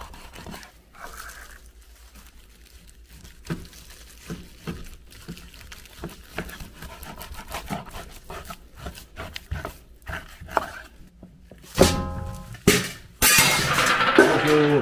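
Cleaver slicing through a large piece of raw pork on a wooden cutting board: soft, irregular knocks as the blade cuts through and meets the board. Near the end, louder clattering and a burst of noise take over.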